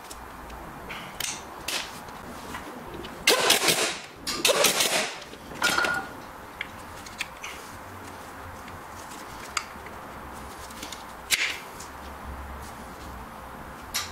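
Ratchet wrench clicking in rapid runs, about three seconds in and again near five seconds, as a bolt on the starter motor is turned. Scattered single sharp clicks and knocks of tools and parts on the engine follow.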